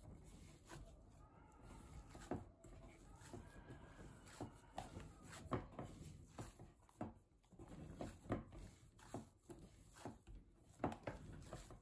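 Hands kneading soft mugwort and glutinous rice flour (shiratama) dough in a bowl: irregular soft thumps and knocks of the dough being pressed and turned against the bowl, about one a second.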